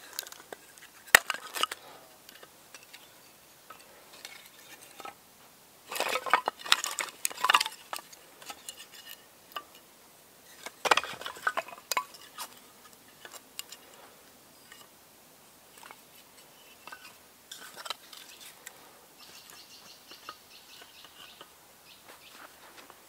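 Dry split kindling sticks knocking and clattering together as they are laid crosswise into a log cabin fire lay, in scattered clusters of light wooden clicks.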